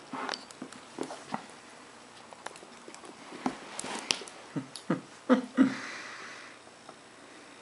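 Two dogs playing on a hardwood floor: claws clicking and pattering on the boards, with a run of short, loud dog sounds about five seconds in, the loudest two close together.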